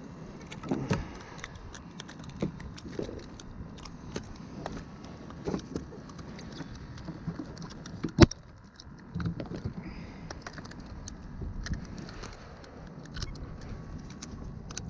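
Scattered small clicks, taps and rattles of fishing tackle and gear being handled aboard a fishing kayak as fish are landed, with one sharp knock about eight seconds in.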